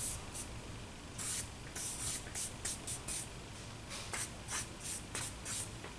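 Charcoal stick scratching across drawing paper in short quick strokes, about two or three a second.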